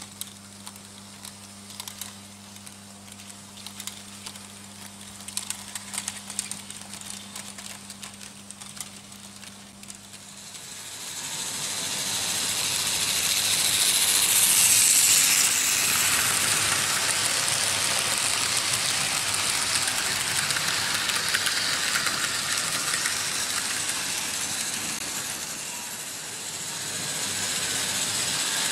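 Märklin H0 model trains running on metal M-track: light clicking of wheels over the track against a steady low hum, then about ten seconds in a train's rolling rattle and motor whir swell up loud and carry on, easing briefly near the end.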